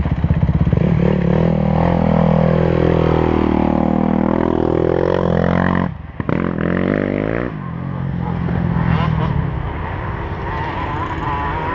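Dirt bike engine heard from on board, revving up and down as the rider accelerates along a rough trail. The throttle is chopped briefly about six seconds in, then the bike pulls again.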